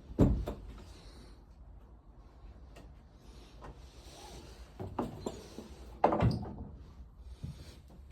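A few sharp knocks and thuds: the loudest just after the start, then a pair about five and six seconds in, with lighter taps between.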